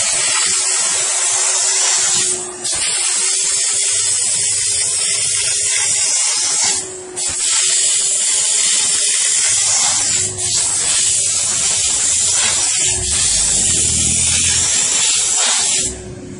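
Steam car wash machine's nozzle jetting steam in a loud, steady hiss over a low steady hum. The steam cuts out briefly a few times and stops near the end.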